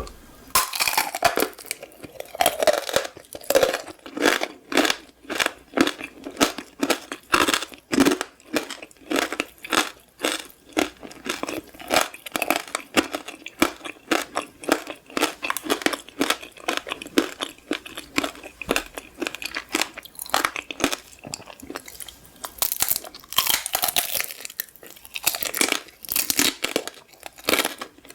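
Crunchy candy being bitten and chewed: a steady run of crisp crunches, about three a second, with a louder, denser stretch of crunching near the end.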